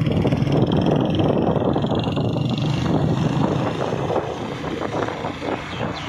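A motor vehicle's engine running steadily on the road, with tyre and wind noise; it eases off and gets a little quieter after about four seconds.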